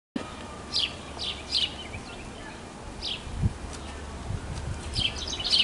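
Birds chirping: a few short, high chirps, then a quick run of repeated notes near the end.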